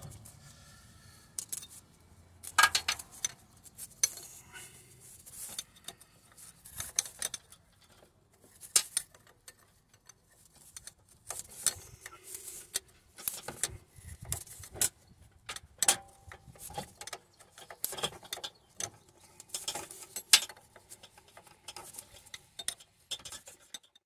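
Steel spanner clicking and clinking against the nut of a car air-conditioning compressor's clutch plate as the nut is refitted and tightened: a long run of irregular, sharp metallic clicks.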